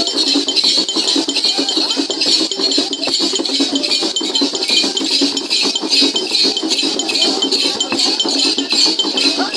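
Rattles and metallic jingles shaken in a fast, steady rhythm, accompanying a traditional dance.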